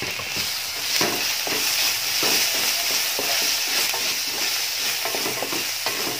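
Chopped tomato and onions frying in coconut oil in a stainless steel pan, sizzling steadily. A wooden spatula stirs the mixture, making repeated short scrapes and knocks against the pan.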